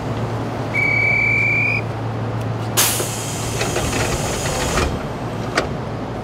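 Nishitetsu commuter train's door-closing sequence: a steady warning tone for about a second, then about two seconds of compressed-air hiss from the pneumatic door engines as the sliding doors shut, and a single knock as they meet. A low steady hum from the standing train runs underneath.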